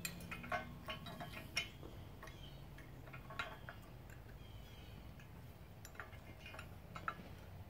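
Faint clicks and clinks of a bolt and washer being handled and fitted into a compost tumbler's base bracket. There is a quick run of clicks in the first second and a half, then a few scattered ones later.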